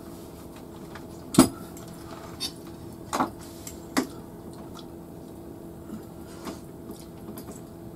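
Forks and spoons clinking against dinner plates and a serving pan as people eat: a few sharp clinks, the loudest about a second and a half in, over a steady low hum.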